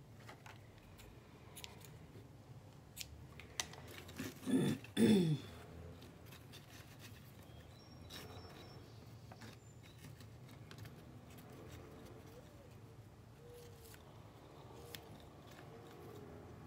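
Macramé cord and cocoon beads handled by hand: soft rustling with scattered small clicks. A brief voice-like sound with a bending pitch comes about four and a half seconds in.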